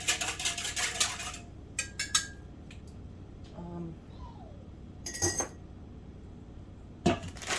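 Kitchen clatter: light clinks and knocks of dishes and containers being handled. They come thick for the first second and a half, then only a few scattered knocks.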